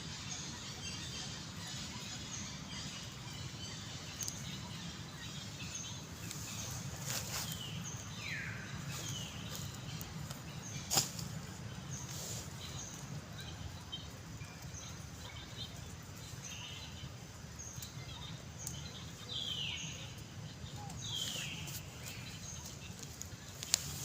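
Scattered short, high animal calls, each sliding down in pitch, over a steady low background hum, with a sharp click about eleven seconds in.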